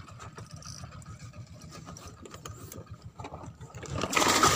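Fishing boat's engine idling with a steady low pulsing. About four seconds in, a loud splash of water as the hooked fish reaches the surface beside the boat.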